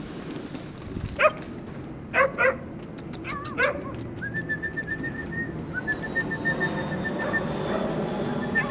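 Stray dogs bark a few short times in the first four seconds, followed by a rapid, high-pitched trill lasting about three seconds that comes back briefly near the end.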